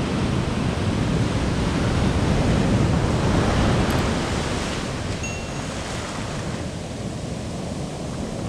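Strong ocean surf breaking right at the shoreline and washing up the sand, a steady rushing that swells to its loudest about three or four seconds in and then eases as the water runs back.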